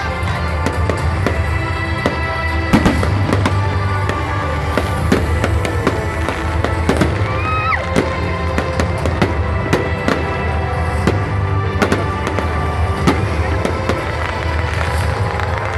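Fireworks display going off: a rapid, continuous string of bangs and crackling bursts, with music playing alongside.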